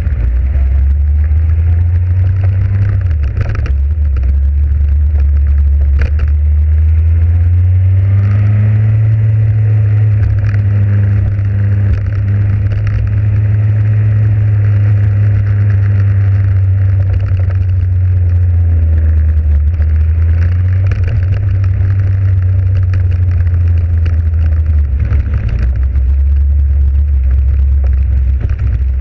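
Motorcycle engine running under way at town speed: its steady drone rises in pitch about eight seconds in as it picks up speed, holds, and falls back about twenty-five seconds in.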